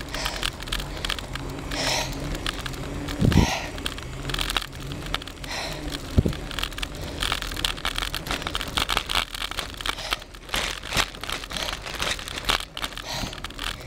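Crackling, rustling handling noise from a camera carried on a bicycle being ridden uphill, with many small clicks and two sharp low thumps, about three and six seconds in.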